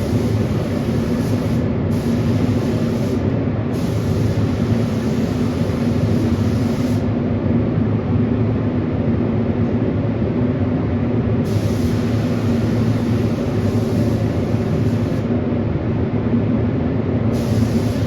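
A machine running steadily with a low hum and a constant rushing noise, unchanged in level throughout.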